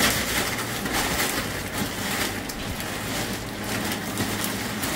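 Rustling and crinkling of parcel packaging being handled, with many small irregular crackles.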